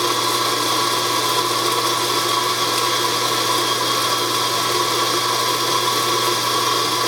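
Eureka Zenith 65 E Hi-Speed espresso grinder's motor and 65 mm flat burrs grinding coffee beans in a steady, even whir during a timed dose of about 9 seconds.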